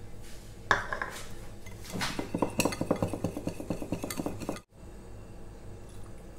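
Steel wire whisk beating flour into egg for crepe batter in a glass bowl, the wires clinking against the glass in quick, even strokes. It stops suddenly a little past halfway.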